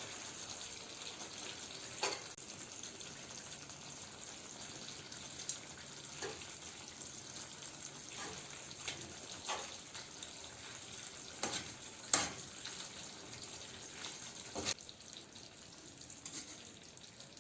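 Creamy Alfredo sauce with pasta cooking in a pan, a faint steady simmering hiss, while a utensil stirs it, with scattered knocks and scrapes against the pan. The loudest knock comes about twelve seconds in.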